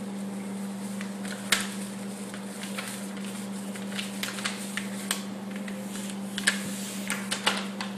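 Plastic cake-mix pouch crinkling and rustling as the dry mix is shaken out of it into a stainless steel mixing bowl. It makes irregular sharp crackles, loudest about a second and a half in and again near six and a half seconds, over a steady low hum.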